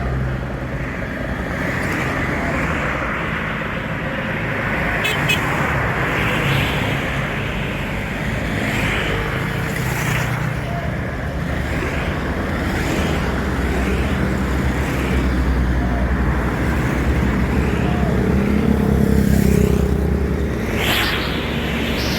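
A tour bus's diesel engine runs with a steady low rumble over road traffic noise.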